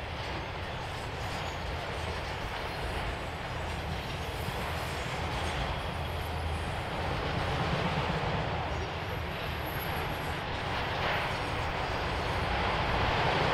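Freight train cars rolling past with a steady rumble of wheels on rail, slowly growing louder.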